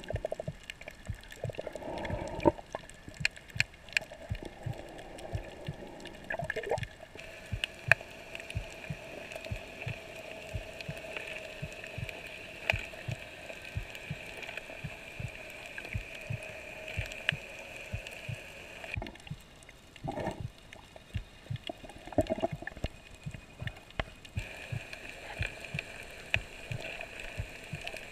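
Underwater ambience on a coral reef: a steady scatter of sharp clicks and crackles, with water swishing past the camera in a few louder swells and a faint steady hum underneath.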